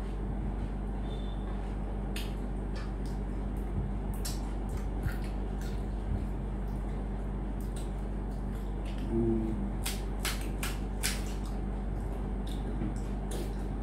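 Eating noises at a table: crisp puri shells cracking and being handled, heard as scattered sharp crackles and clicks, over a steady low hum. A brief low murmur comes about nine seconds in.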